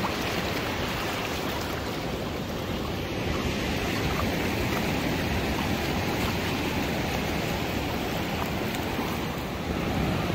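Small surf waves washing in and spreading as foam over flat wet sand, a steady hiss of moving water.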